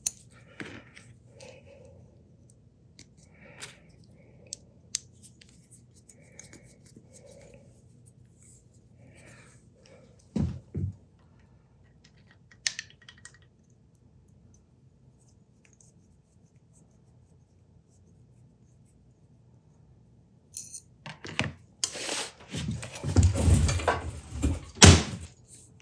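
Small clicks and clinks of steel parts and a hex key being handled while a machine tailstock is assembled, with a short clatter about ten seconds in. From about twenty seconds on comes a run of loud knocks and thumps.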